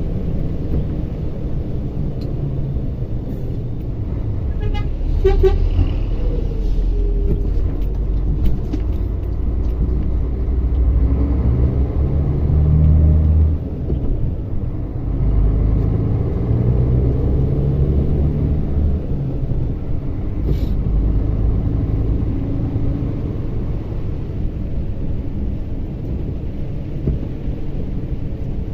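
Mercedes-Benz Axor 2644 truck's inline-six diesel engine running under way, heard from inside the cab as a steady low rumble, its pitch rising and falling as it pulls, and dropping off suddenly partway through. A brief pitched tone sounds about five seconds in.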